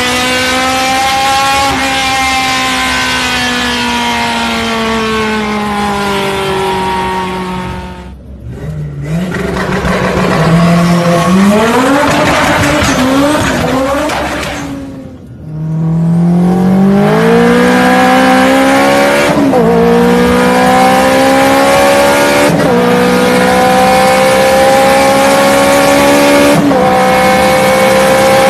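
Honda City car engine running under load. Its pitch sinks over the first several seconds and the sound drops away briefly twice, at about eight and fifteen seconds in. It then climbs steadily, with short dips every three to four seconds.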